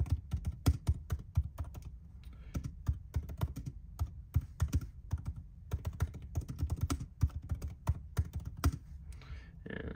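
Typing on a MacBook Pro laptop keyboard: quick, irregular key clicks with a few short pauses.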